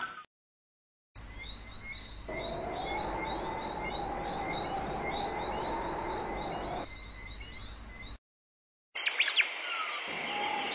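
Stock sound-effect recording of many small birds chirping in quick repeated calls over a steady background haze, not the honeyeaters themselves. It cuts in after a short silence and cuts off about eight seconds in. After a brief gap a different clip begins with a few sharp strikes and ringing tones.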